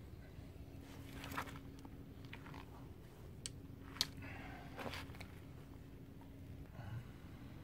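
Quiet rustling and scattered clicks of a carp landing net's mesh being handled and peeled back from a caught mirror carp on an unhooking mat, with one sharper click about four seconds in.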